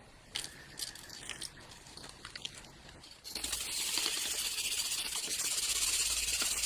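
A few light clicks and rattles, as of small parts being handled, then about three seconds in a steady spraying hiss starts and slowly grows louder.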